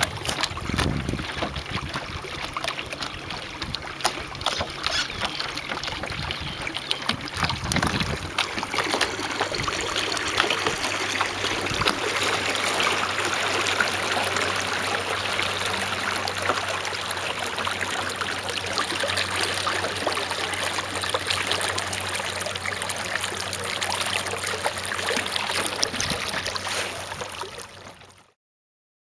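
Water splashing and trickling along a small boat's hull as it sails, with wind buffeting the microphone in the first several seconds. The sound fades out near the end.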